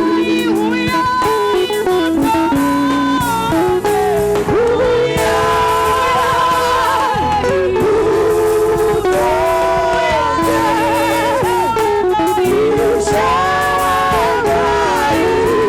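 Gospel music: voices singing with wavering, held notes over guitar accompaniment.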